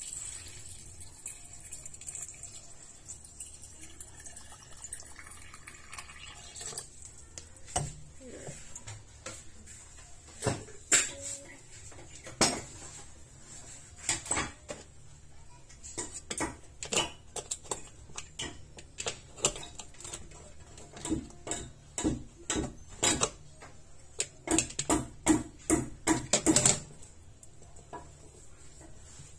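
Water trickling into a tabletop dishwasher's salt reservoir for the first few seconds, then a long run of sharp hard-plastic clicks and knocks as the reservoir and its cap are handled inside the tub. The knocks come fastest and loudest near the end.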